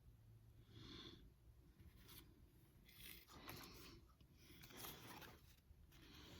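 Faint soft rubbing and sliding of Pokémon trading cards being handled, a few short strokes.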